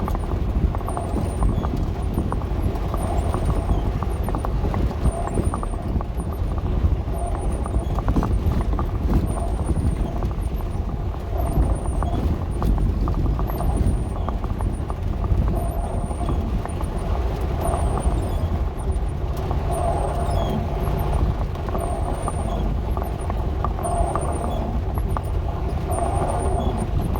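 Dodge A108 van driving on a wet gravel road, heard from inside: the engine runs under a steady low rumble while gravel crunches and the body rattles. A faint high squeak repeats about every second and a half.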